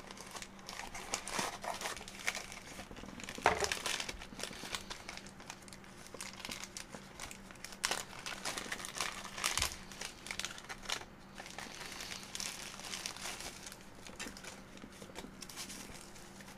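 Thin plastic parts bags crinkling and rustling as they are handled and opened, with a few sharper knocks along the way.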